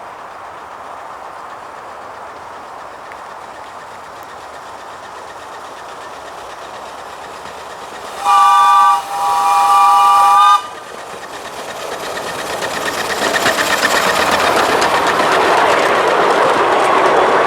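Miniature 7¼-inch gauge railway locomotive sounding a multi-note chime warning, a short blast then a longer one. Then the train approaches, its running noise and wheel clatter growing steadily louder.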